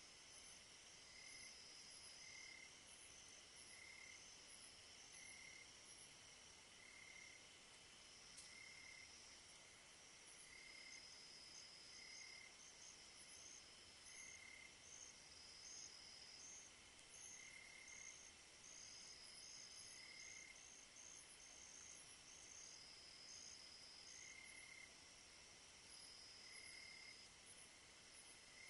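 Faint night chorus of crickets and other insects: several species calling at once, a steady high trill with overlapping short chirps, one repeating about every second and a half.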